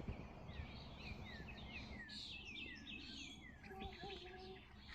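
Small birds chirping and twittering in a quick run of short falling notes, faint over a low outdoor background noise.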